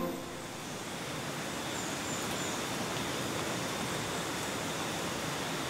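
Steady rushing of flowing water from a forest river, an even hiss with no breaks.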